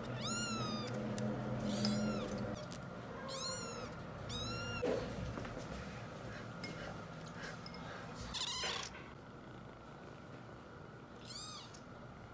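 Young kittens mewing: about six high, thin mews spread through, each rising and then falling in pitch.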